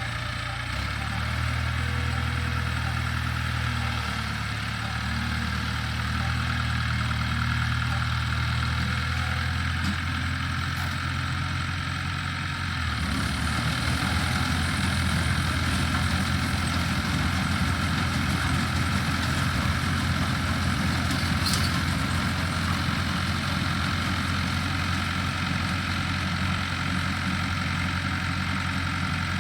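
International Harvester tractor engine running steadily while driving an IH 82 pull-type combine's machinery. About halfway through, the low engine hum shifts and turns rougher.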